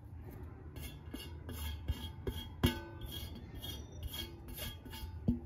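Spoon clinking and scraping lightly against a mixing bowl while ingredients are added, with one sharper clink about two and a half seconds in that rings briefly.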